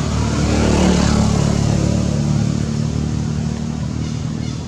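A motor vehicle's engine passing by: the sound swells to its loudest about a second in, then slowly fades away.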